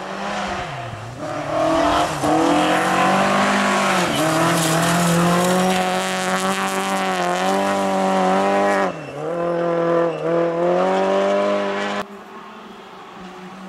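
Rally car engine pulling hard on a gravel stage, its pitch dipping briefly several times between pulls as it passes close. About twelve seconds in, the sound cuts sharply to a quieter, more distant engine.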